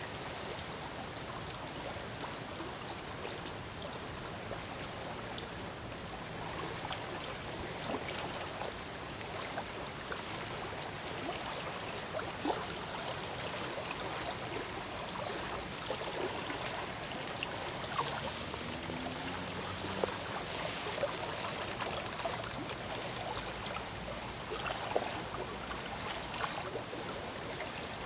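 Wind-driven waves on a lake lapping and splashing, many small splashes over a steady rush of wind and water.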